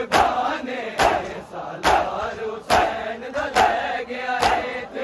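Large crowd of men doing matam, slapping their bare chests in unison: six loud slaps about one every 0.9 s, with the crowd chanting a noha between the strikes.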